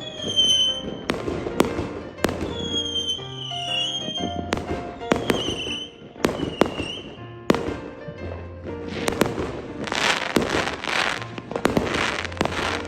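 Fireworks going off: sharp bangs, several short falling whistles, and bursts of crackling about ten seconds in. Background music plays underneath.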